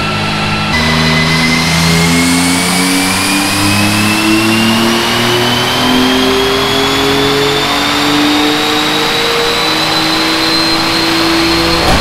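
Built, straight-piped twin-turbo 6G72 V6 of a Mitsubishi 3000GT VR4 on a full-throttle dyno pull, the revs climbing steadily for about eleven seconds, then falling sharply right at the end as the throttle closes.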